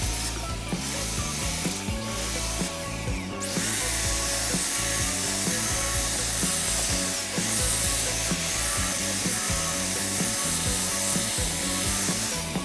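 A power tool working on wood, running steadily and growing fuller after the first few seconds, over background music.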